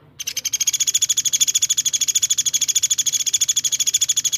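Songbird singing a fast, tight trill of identical high notes, about a dozen a second, machine-gun even and unbroken. This is the rapid 'tembakan' burst used in bird-song tutor recordings.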